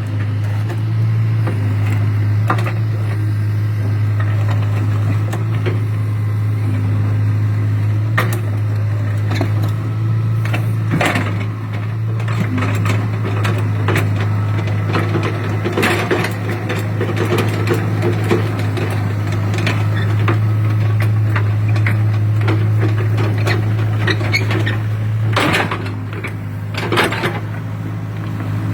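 Hitachi excavator's diesel engine running steadily at a constant low hum, with occasional sharp knocks and clanks from the digging.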